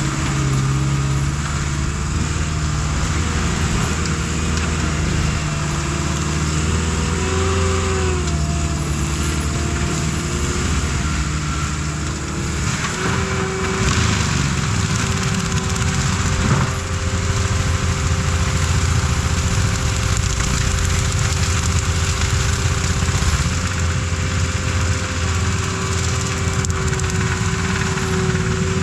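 Engine of heavy machinery running steadily under load, its pitch dipping and rising briefly about a quarter of the way in, with a few sharp knocks or cracks around the middle.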